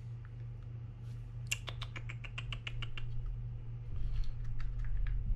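Penn Spinfisher 5500SS spinning reel being handled, giving small sharp clicks: a quick, even run of about a dozen clicks lasting about a second and a half, then a few scattered ones, over a steady low hum.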